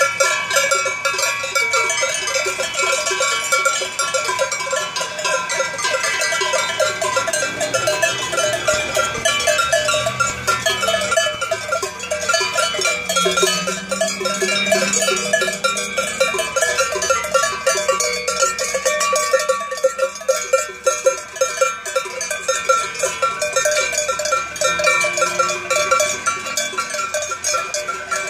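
Many cowbells ringing at once on a herd of cattle as they walk, each bell at its own pitch, their strokes overlapping in a continuous irregular clanging.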